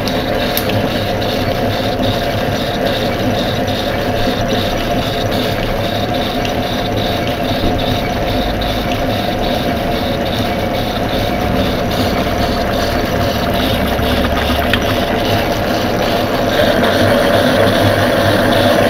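Drummond metalworking lathe running steadily with a brass bar spinning in the chuck, a continuous mechanical whirr with a faint regular ticking. It gets a little louder about three-quarters of the way through.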